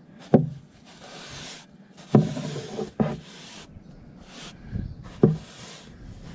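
Large stain brush scrubbing stain into rough-sawn wood boards, a run of short rasping bristle strokes, broken by about four sharp knocks that are the loudest sounds.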